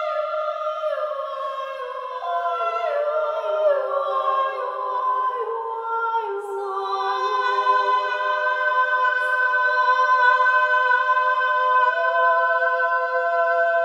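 Wordless singing in a female range, several long held voice lines layered like a small a cappella choir. The notes step down in pitch over the first few seconds, then settle into a steady sustained chord.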